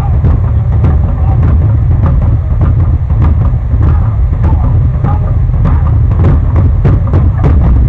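Loud live percussion: rapid, uneven drum and wood-block strikes over a heavy low rumble.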